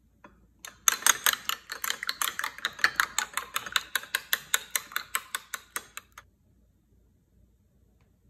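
Spoon beating an egg in a small ceramic bowl, clicking rapidly against the bowl about six times a second; it starts about a second in and stops about six seconds in.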